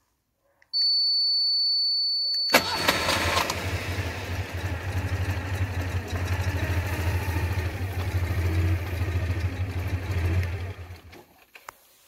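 A high electronic beep from the remote system, then the Citroën 2CV's engine starting by remote about two and a half seconds in and running steadily for about eight seconds before it stops near the end.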